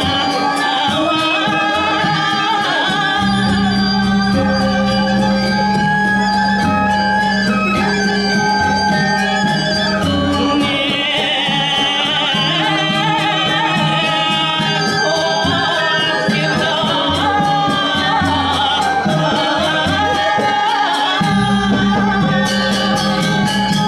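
Balinese gamelan playing the accompaniment to a Telek mask dance: layered ringing metal tones over a fast, steady beat, with a low tone coming in about three seconds in and dropping out near the end.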